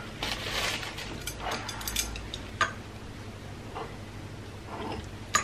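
Chopsticks scooping cooked rice out of one porcelain bowl into another: soft scrapes and a few light clicks of chopsticks on the bowls, with a sharper click near the end.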